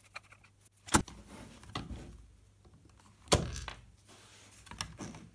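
Plastic case of an 18 V Ryobi NiCd battery pack being pried open with a screwdriver: two sharp clicks, about a second in and just past three seconds, with fainter knocks and handling noise between.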